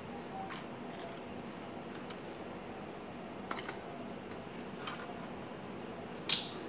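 Several short, sharp clicks of the plastic and metal parts of a Kyocera DK-5140 copier drum unit as it is handled and fitted back together, the loudest near the end, over a steady low hum.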